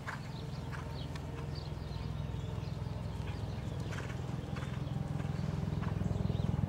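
Horse's hoofbeats on a sand arena at the trot, with scattered soft clicks over a steady low rumble that grows louder toward the end.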